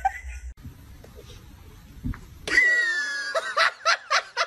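A person laughing in short bursts. After a quiet stretch, a loud high-pitched cry starts about halfway through and slowly falls, then quick rhythmic laughter follows.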